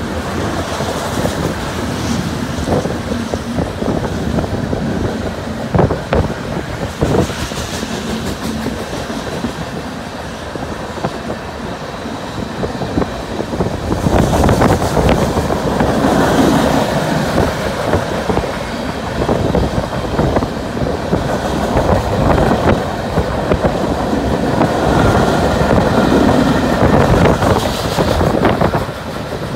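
Freight train cars rolling past: steel wheels rumbling on the rails with scattered sharp clicks. Tank cars pass first, then covered hoppers from about halfway, when the sound gets louder.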